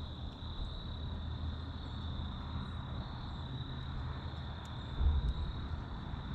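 Crickets trilling steadily in one high tone, over a low rumble, with a brief low thump about five seconds in.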